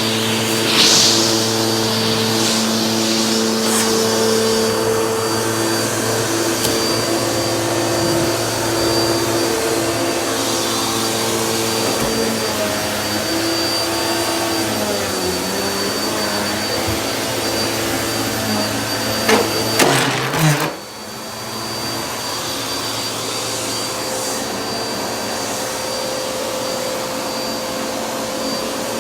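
Vacuum cleaner running steadily, its motor humming with a constant high whine, with crunchy crackling of debris being sucked up. About two-thirds of the way through there are a few sharp knocks and the sound briefly drops, then it runs on slightly quieter.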